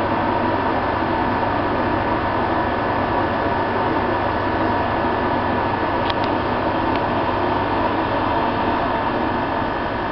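Steady hum and whine of an electric passenger train's locomotive, with a few constant pitches.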